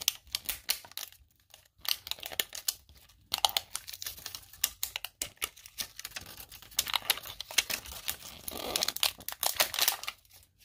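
Plastic wrapping crinkling and tearing in rapid, irregular crackles as the wrapped layers of an LOL Surprise ball are handled and opened.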